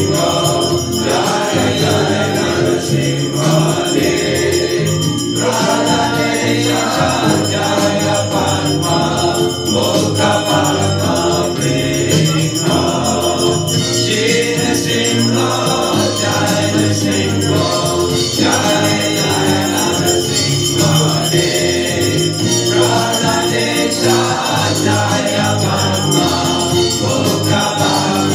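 A Hindu devotional hymn sung in chorus with instrumental accompaniment, playing without a break, over a steady high metallic ringing.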